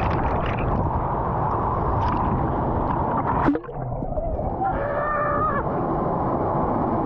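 Rushing water, loud and steady, broken off suddenly about halfway through. A person's short held call, about a second long, comes near the end.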